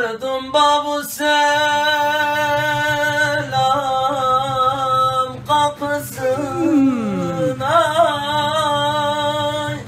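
A solo male voice singing an uzun hava: long held notes in free rhythm with wavering ornaments and slides between pitches. A couple of sharp knocks come through, about a second in and about six seconds in.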